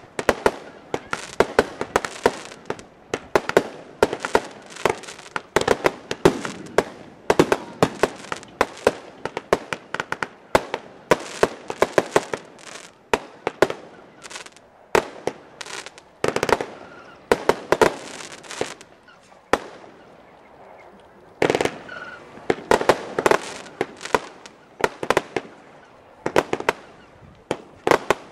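Fireworks display: a rapid, continuous series of launch thumps and small aerial bursts with crackle, several bangs a second. About two thirds through it briefly goes quieter, then resumes with a dense run of bangs.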